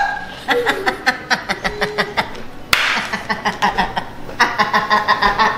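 A man and a woman laughing hard, in quick repeated bursts of ha-ha pulses.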